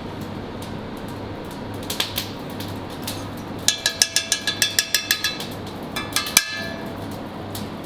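Metal kitchen utensils clinking: a quick run of about a dozen ringing metallic taps midway, a few more shortly after, over the steady hum of kitchen ventilation.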